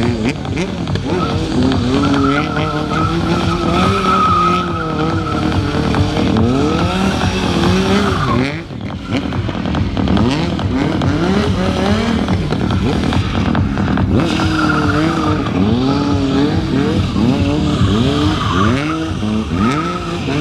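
Stunt motorcycle engine revving up and down again and again as the bike slides in circles, with tyres squealing on the tarmac. The engine briefly drops off about eight and a half seconds in, then picks up again.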